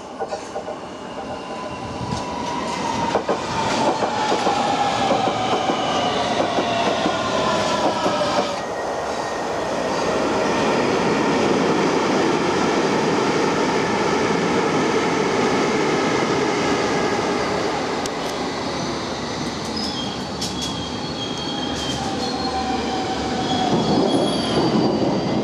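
London Underground District Line trains: one approaches with a whine that falls steadily in pitch over several seconds. Then an S stock train rolls in along the platform with a steady rumble, and high wheel squeal comes in near the end.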